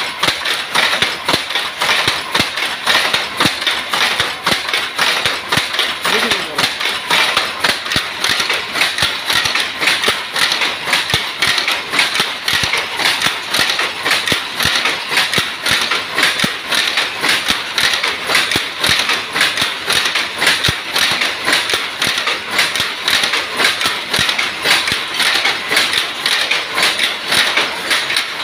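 Power loom running at speed: a steady, rapid clatter of sharp knocks, several a second.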